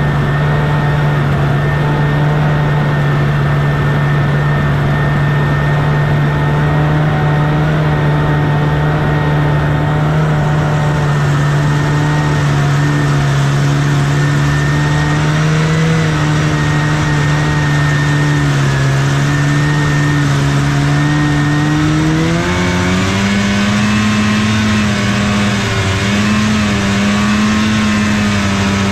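A 1979 Scorpion Whip TKX 440 snowmobile's Cuyuna two-stroke twin running steadily under way. Its pitch rises quickly about three-quarters of the way through as it speeds up, then holds at the higher pitch.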